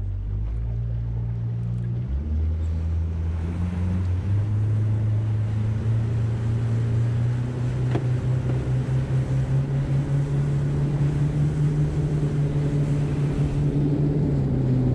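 Boat's outboard motor running under way, its pitch climbing in steps over the first several seconds as the boat gets up to speed, then holding steady. Wind and water rush past the hull.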